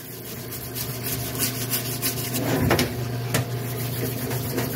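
Parts washer's pump motor humming steadily while the aluminum valve cover is scrubbed in the solvent tub. Scattered clicks and rubbing come from the scrubbing, with a sharper click a little past the middle.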